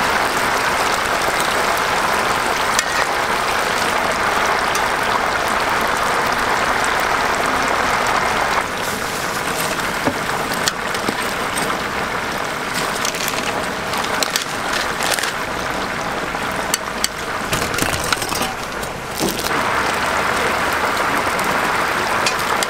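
Whole chickens deep-frying in a large pot of hot oil: a steady, loud sizzle of bubbling oil, quieter for about ten seconds in the middle. Metal tongs click and clank against the pot and chickens now and then.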